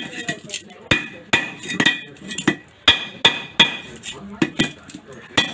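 Hammer blows chipping at the cement potting inside a mini welding machine, about two sharp strikes a second, each with a short ringing clink.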